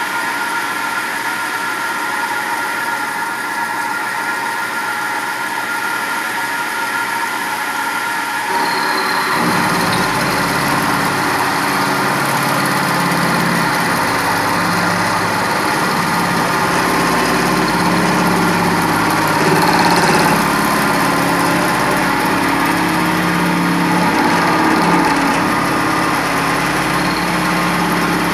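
CNC vertical milling machine with a Fanuc AC spindle, running steadily with an end mill cutting into a metal workpiece. About a third of the way in the sound steps up, louder and fuller, with a thin high whine added.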